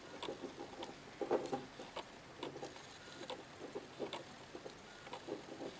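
Light, irregular rustling and small clicks of fingers handling a soldered rechargeable battery pack while insulating its wired end.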